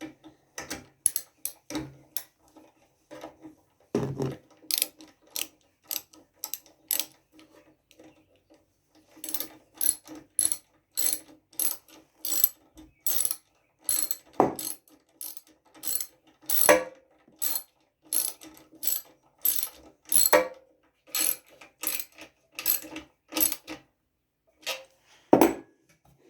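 Hand ratchet wrench clicking in repeated short strokes as bolts are tightened on a small engine, with a brief pause partway through.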